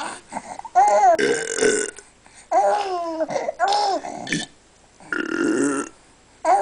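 An adult making rough burping noises twice, a little over a second in and again about five seconds in, with a baby's high-pitched squealing laughter before and between them.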